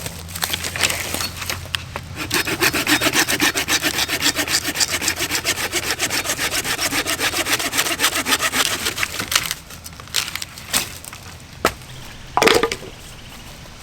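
Hand saw cutting through wood with quick, even back-and-forth strokes, which stop about three-quarters of the way through. A few separate knocks follow, the loudest near the end.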